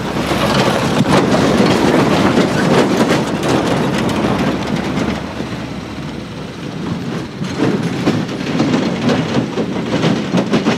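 Vehicle tyres rolling and crunching over loose rocks and gravel on a dirt trail, a dense clatter of stones with an engine running underneath. Loudest in the first few seconds, easing off around the middle, then building again.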